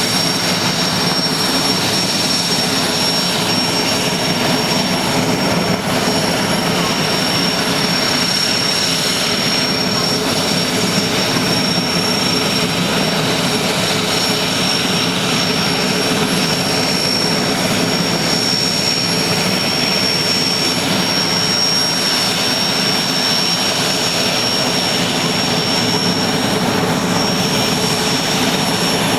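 IAR 330 Puma helicopter's twin turboshaft engines and rotor running steadily at a constant speed, with a strong, unchanging high-pitched turbine whine over a dense rushing noise.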